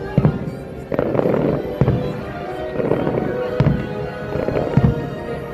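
Fireworks bursting, a sharp bang every second or so, over the show's soundtrack music played across the park.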